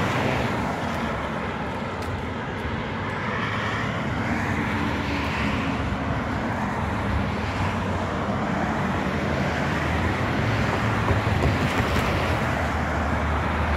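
Road traffic going by: a steady rush of tyres and engines with a low hum, growing a little louder in the second half.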